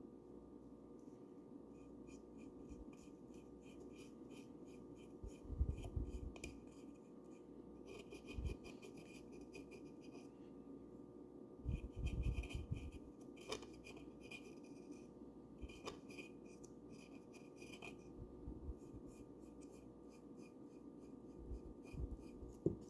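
A paintbrush brushing paint onto a bird house: runs of quick scratchy back-and-forth strokes, about four a second, broken by short pauses. A few dull knocks stand out above the brushing.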